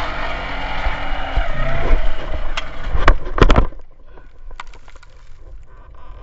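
Dirt bike engine running under throttle, then several hard knocks and thuds as the bike crashes, the engine sound cutting off abruptly about three and a half seconds in; after that only faint low sounds remain.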